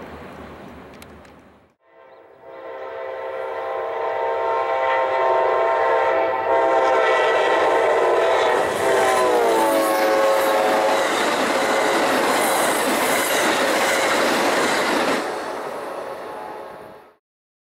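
Rumble of a passing train fades and cuts off. Then a diesel locomotive air horn sounds a long horn over the noise of the passing train, its pitch dropping partway through, before everything stops suddenly.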